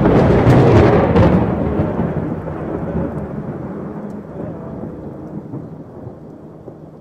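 Thunder sound effect: a loud, crackling clap that rolls into a long rumble and fades away steadily over several seconds.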